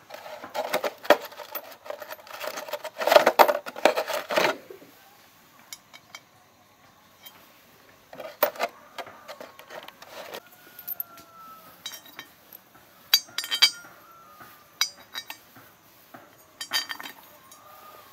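Small metal engine parts and tools clinking and rattling: a dense clatter for the first few seconds, another burst around the middle, then scattered single clinks.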